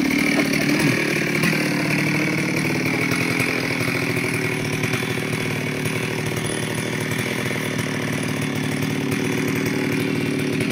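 Two-stroke chainsaw engine running steadily at an even speed.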